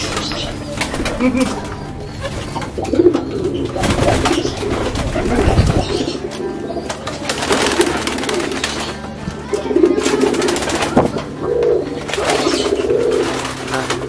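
Domestic pigeons cooing over and over: the coo of a cock pigeon courting a hen held close to him. There are a few brief rustles and wing flutters in between.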